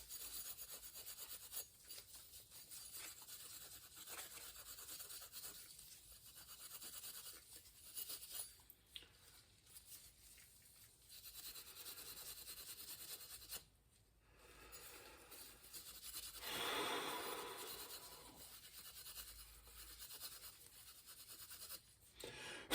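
Steel wool rubbing on a metal bicycle wheel part in quick back-and-forth strokes, scouring it clean. The scrubbing grows louder for a second or two about 17 seconds in.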